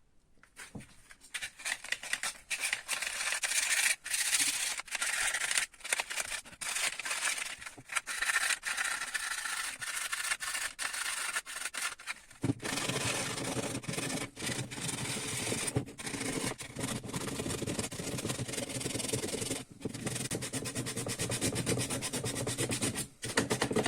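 Sandpaper scrubbing the steel magnetic core of a PME-series electromagnetic starter in continuous strokes with brief pauses, getting fuller and lower about halfway through. The core's pole faces are being cleaned of the dirt and rust that made the starter hum.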